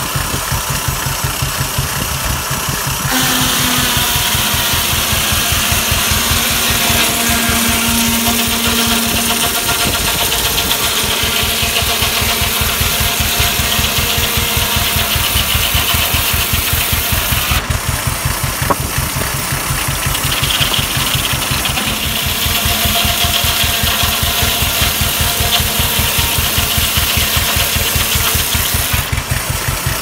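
Case steam engine running under belt to a sawmill, its exhaust beating in a rapid, even rhythm. A higher hiss from the running mill rises and falls several times.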